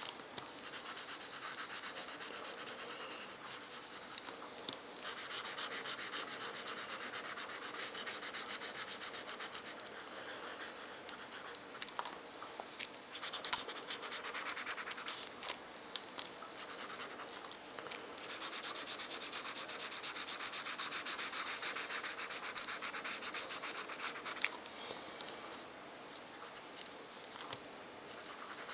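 Felt-tip marker scratching on paper in quick back-and-forth strokes as an area is coloured in. It comes in louder and quieter spells, with a couple of sharper ticks about halfway through.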